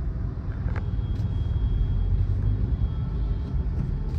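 Steady low rumble of a road vehicle on the move, engine and road noise, with a light click about a second in.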